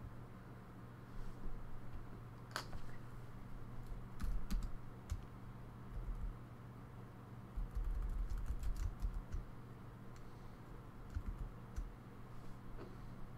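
Typing on a computer keyboard: scattered short runs of keystrokes with a few dull low bumps, busiest around a third of the way in and again past the middle, over a steady low hum.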